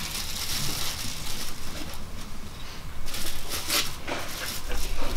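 Small statue pieces being handled and gently pressed into place: rustling and scraping, with a few sharper clicks about three to four seconds in.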